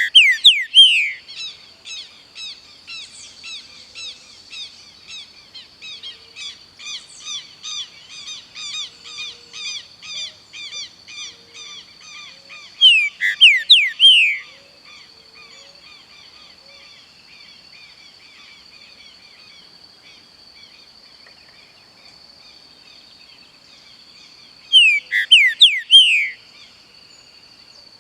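Pixarro singing: three loud bursts of quick falling whistled notes, near the start, about halfway and near the end. Between the first two runs a softer chirping about one and a half notes a second, over a steady high insect drone.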